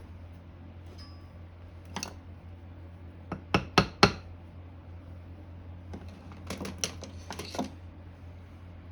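Sharp metallic clinks and taps of hand tools and small metal motor parts being handled on a bench during disassembly: one about two seconds in, a quick run of four or five a little later, and another cluster near the end.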